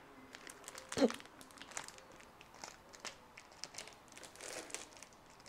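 Hazelnuts being handled for a topping: quiet, irregular crinkling and crunching clicks, with one louder knock about a second in.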